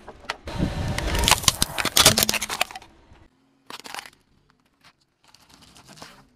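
A car tyre rolling slowly over small objects and crushing them: a run of crackles and cracks for nearly three seconds, then after a pause a short crunch about four seconds in.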